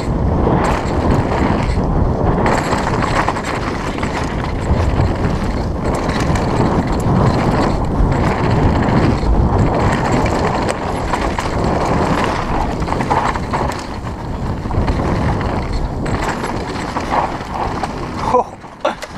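Mountain bike descending a rough dirt downhill track at speed: tyres rumbling and skidding over dirt and stones, chain and frame rattling over bumps, and steady wind noise on the handlebar-mounted camera's microphone. The noise eases briefly near the end.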